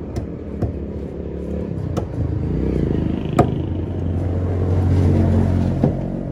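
A steady engine rumble that swells around five seconds in, with a knife knocking sharply on a chopping block about five times as fish is cut, the loudest knock about three and a half seconds in.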